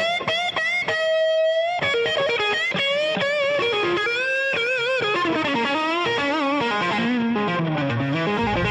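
Blues music in an instrumental break: an electric guitar solo of single notes, bent and shaken with vibrato.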